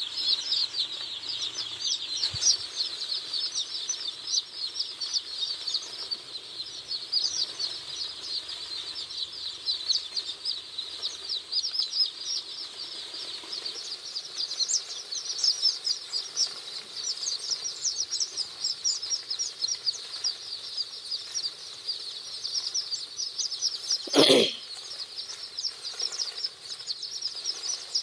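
A large flock of broiler chicks peeping continuously, many short high chirps overlapping into a dense chorus. About 24 seconds in, a brief, much louder sound cuts across it.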